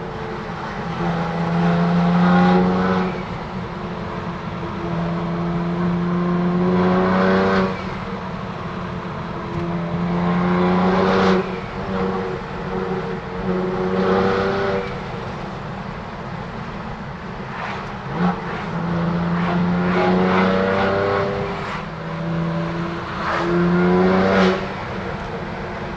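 BMW F80 M3's twin-turbo inline-six, with an M Performance exhaust and secondary cat delete, accelerating hard several times. Its note rises through each pull and drops sharply at each shift.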